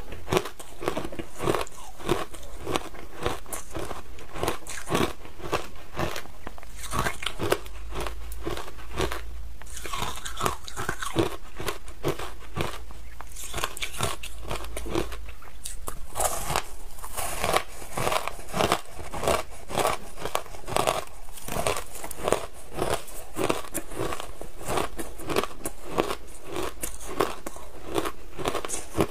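Crunching and chewing of matcha-dusted shaved ice bitten from hand-held clumps: a continuous run of short, sharp crunches, several each second.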